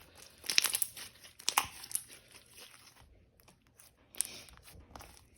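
Coated clear slime being stretched and squished by hand, crinkling and crackling in short clusters, the loudest about half a second and a second and a half in, with more near four seconds in.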